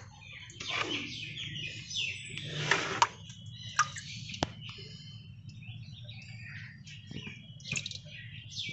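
Small birds chirping repeatedly, with a brief splash of water about three seconds in as a bucket is tipped into the tank.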